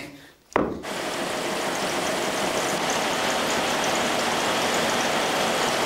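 Newspaper printing press running: a steady rushing machine noise that starts suddenly about half a second in.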